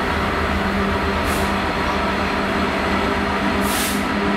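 GB Railfreight Class 66 diesel locomotive approaching with a train of wagons, its two-stroke V12 engine running with a steady low drone over the rumble of the wheels. Two short hisses come through, about a second and a half in and again near the end.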